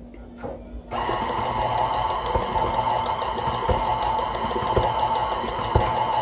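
Electric tilt-head stand mixer switched on about a second in, then running steadily with a rapid, even ticking as its beater works a stiff, heavy dough. A few dull thumps come from the load on the beater, which strains the mixer so much that the head will not stay down on its own.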